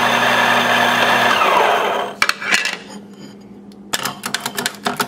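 Rancilio KRYO 65 commercial espresso grinder's 450-watt motor and 64 mm flat burrs grinding with a steady whir and hum, then switched off and winding down about a second and a half in. A couple of clacks follow, and from about four seconds in comes a fast run of clacks from the doser lever being flicked.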